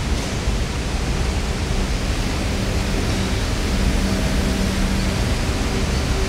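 R44 Staten Island Railway subway train rolling slowly along the platform: a steady rumble and hiss of wheels on rail, with a faint steady hum for a couple of seconds in the middle.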